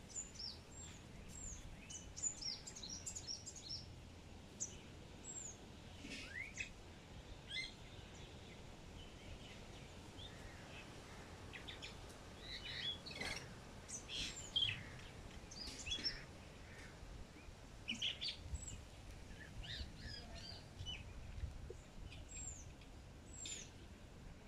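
Wild birds calling: many short, high chirps and quick downward-sliding whistles in scattered clusters, over faint low background noise.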